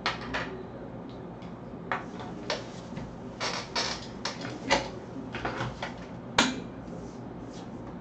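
Handling noise on a headset microphone: a string of short clicks, knocks and rustles as hands rub the face near the mic and the wearer gets up from the desk, the two loudest knocks in the second half.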